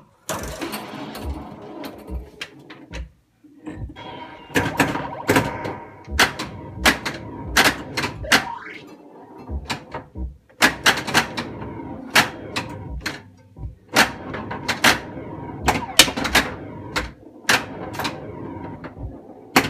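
Bally Space Invaders pinball machine in play: a rapid, irregular run of sharp clacks from the flippers, the ball and the playfield mechanisms, over the machine's electronic sound effects.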